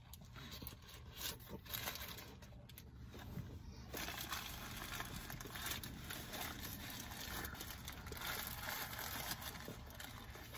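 Quiet chewing of crispy chicken sandwiches, with paper sandwich wrappers crinkling, over a low steady hum.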